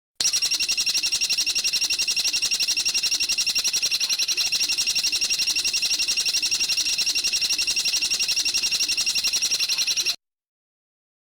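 Songbird giving a rapid, even trill of high notes repeated without a break, cutting in and out abruptly as an edited recording.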